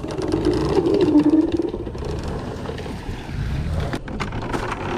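A motor vehicle's engine running steadily, with scattered clanks and knocks over it.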